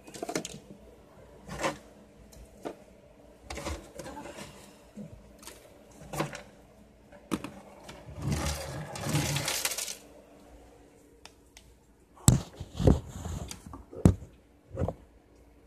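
Wooden drawer being searched by hand: scattered knocks and clatters of items moved about inside it, with a longer scraping stretch about eight seconds in and a few sharper knocks near the end.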